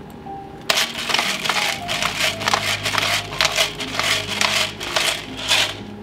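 Pepper mill grinding black pepper: a quick run of gritty crunches that starts about a second in and stops just before the end, over soft background music.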